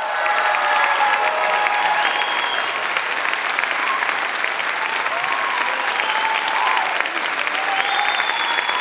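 Concert audience clapping and cheering, with high shouts rising over the steady clapping.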